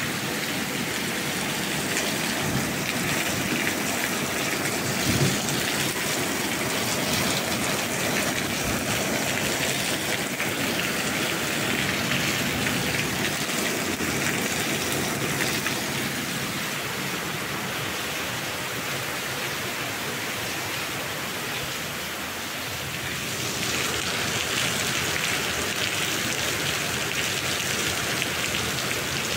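Steady rain-like hiss, easing a little about two-thirds of the way through and then swelling again.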